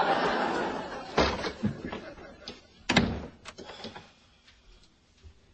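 Studio audience laughter dying away, then a door banging shut: a knock about a second in and a louder slam about three seconds in, followed by a few light clicks.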